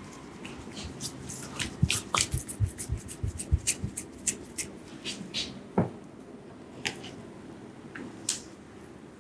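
A barber's hands slapping and tapping on skin in a quick run of massage strokes, several a second, then a few scattered slaps near the end.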